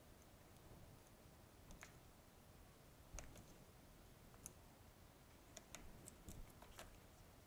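Very faint scattered clicks and taps from an iPhone 6S Plus screen assembly and frame being handled and fitted back onto the housing, a few early and a cluster near the end, over near silence.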